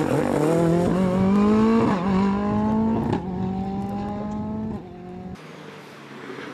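Ford Fiesta rally car's turbocharged four-cylinder engine accelerating hard away, its pitch climbing and dropping back with quick upshifts about a second apart, then fading as the car pulls away. Near the end a fainter engine is heard further off.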